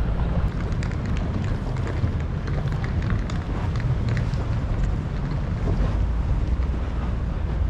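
Wind buffeting the microphone as a steady low rumble, with scattered faint ticks over it.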